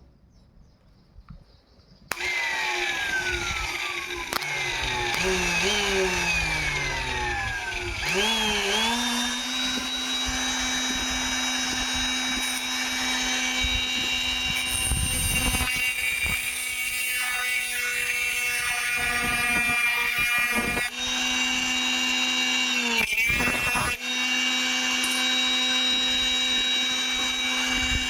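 Small electric motor of a homemade grinder switching on about two seconds in and running with a steady whine. The pitch slides about at first, then holds steady, and briefly dips and recovers twice near the end as the motor is loaded.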